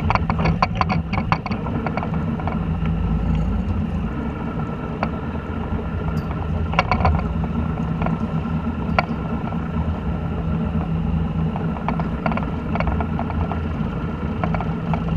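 A fishing boat's engine running steadily with a low hum, with scattered short clicks and knocks over it, a cluster of them in the first second and a half.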